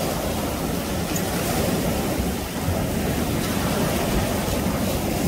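Surf breaking and washing up the beach, a steady rushing noise, with wind buffeting the microphone.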